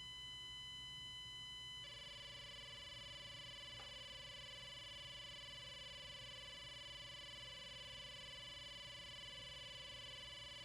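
Near silence: a faint, steady electronic whine and hum, with the set of faint tones shifting about two seconds in.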